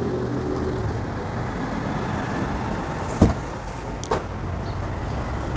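Cardboard carton lifted off an air-conditioner indoor unit and set down, with a sharp knock about three seconds in and a lighter one a second later, over a steady low rumble of background noise.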